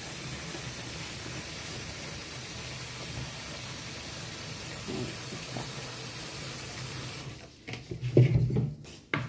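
Water running steadily from a tap, cutting off abruptly about seven seconds in, followed by a few loud knocks and thumps.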